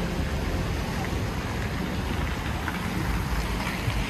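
Wet-street traffic ambience: a steady hiss of car tyres on rain-soaked road under a low traffic rumble.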